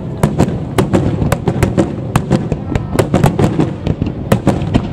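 Aerial firework shells bursting in a rapid barrage, several sharp bangs a second over a continuous low rumble.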